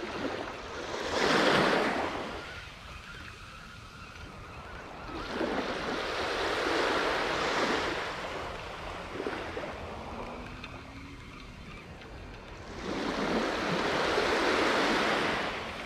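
Small waves breaking and washing up a sandy beach in three surges a few seconds apart, the first about a second in being the loudest.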